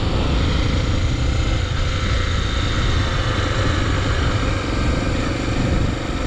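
Honda XR250 Tornado's single-cylinder engine running steadily while the motorcycle is ridden along the highway, with wind rushing over the microphone.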